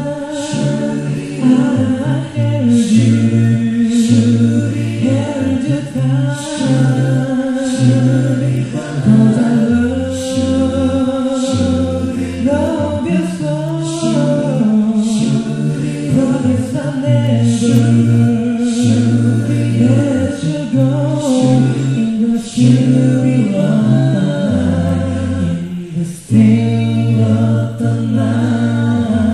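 Male vocal group singing a cappella in close harmony over a low bass voice line, with a crisp beat about once a second.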